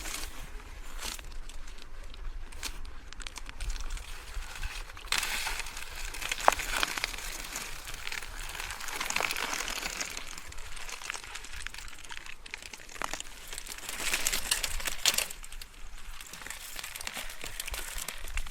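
Mountain bike rolling over a loose dirt trail: tyres crunching and crackling on the ground, with scattered clicks and rattles. The crunching grows louder and brighter from about five seconds in until around fifteen seconds, then eases.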